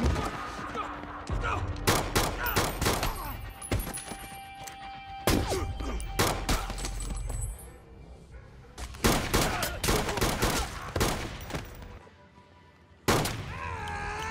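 Film gunfire sound effects: rapid shots fired in clusters, with a lull near the end broken by one last sharp shot, over a music score.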